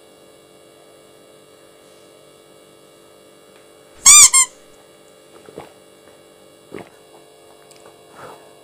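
A short, loud, high-pitched squeak in two quick parts about four seconds in, over a steady electrical hum. A few faint taps follow.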